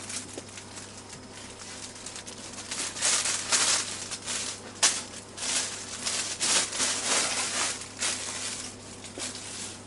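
Thin plastic bag crinkling and rustling in irregular bursts as it is handled and packed by hand, over a low steady hum.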